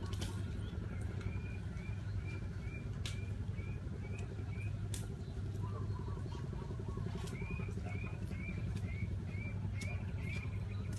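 A bird repeats a short rising-and-falling chirp about twice a second, in one run early on and another from about seven seconds in, over a steady low hum. Sharp clicks sound here and there.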